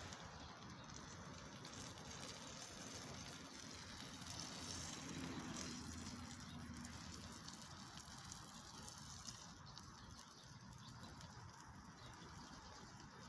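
Faint crackling and hissing of a wood fire, with a couple of sharp pops about halfway through.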